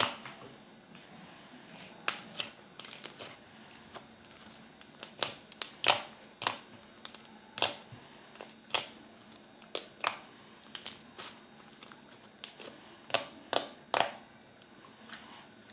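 Slime being squeezed and poked by hand, giving irregular sharp pops and clicks, about one a second, with faint squishing between them.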